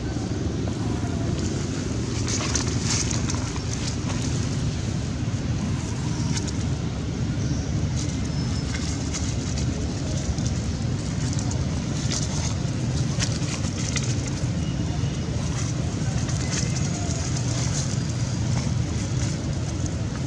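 Steady low outdoor background rumble, with scattered faint clicks through it.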